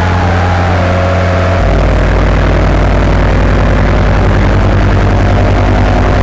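Motor and propeller noise in flight: a steady low hum with a wavering whine that drifts up and down in pitch, the low hum deepening about a second and a half in.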